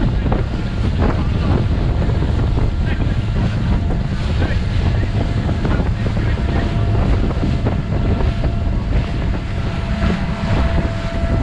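Wind buffeting the microphone on a moving motorboat, with a steady low engine rumble underneath.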